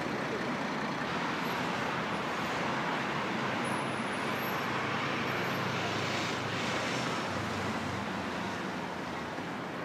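Steady background noise of city traffic: an even hiss with no distinct events, easing slightly near the end.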